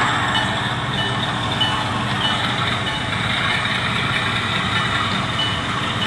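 Sampled GE FDL-16 diesel engine sound from a Tsunami sound decoder in an HO-scale C44-9W model locomotive, running steadily through the model's small speaker.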